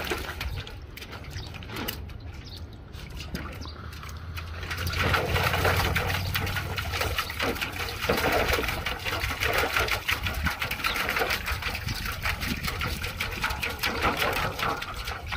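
Husky puppy pawing and splashing the water in a metal bowl: a quick, uneven run of splashes and sloshes that thickens about five seconds in. Low wind rumble on the microphone underneath.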